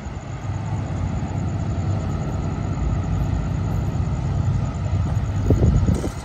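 Approaching diesel train, its locomotive giving a steady low rumble, with a grade crossing bell ringing faintly and evenly over it. A few gusts of wind hit the microphone about five seconds in.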